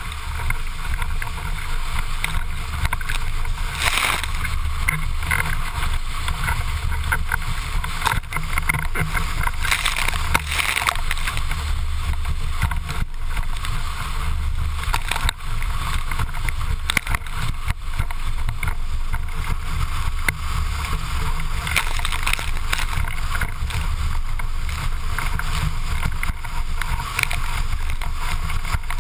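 A windsurfing board planing fast over choppy water: wind buffeting the microphone in a loud, ragged rumble over the hiss of rushing water, with bursts of spray hitting several times.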